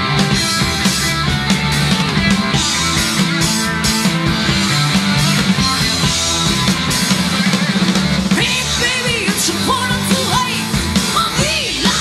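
Rock trio playing live: electric guitar, bass guitar and drum kit in a loud, driving passage, with high wavering notes coming in over it about eight seconds in.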